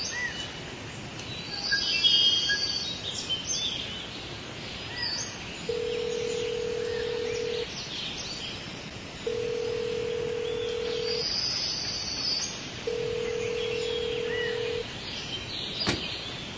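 Birds chirping in the open, with a telephone ringback tone repeating three times in the middle, each ring a steady tone about two seconds long with a pause of about a second and a half between. A single sharp click comes near the end.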